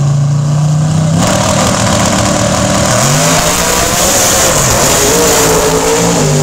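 Drag racing cars launching about a second in: a steady held engine note gives way to a loud full-throttle run down the strip, the pitch dropping and climbing again at the gear changes.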